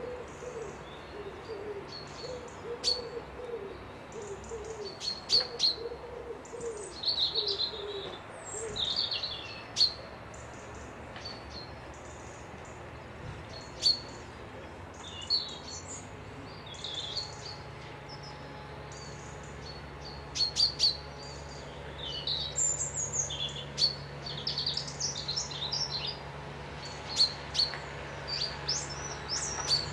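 Several wild birds singing and chirping, with sharp high chirps and warbling phrases throughout. A lower call repeats over and over underneath for the first third. A faint steady low hum comes in about halfway.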